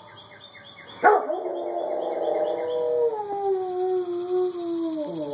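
Dog howling: one long howl that starts suddenly about a second in, dips in pitch partway through and slides down as it dies away at the end.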